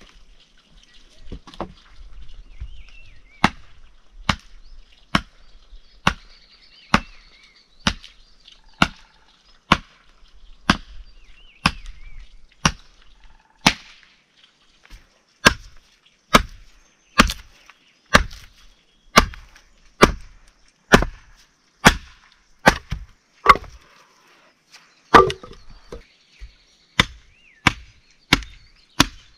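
Firewood being chopped by hand: a blade striking wood in a steady run of chops about one a second, with a few sparser strikes at first and one short pause near the end.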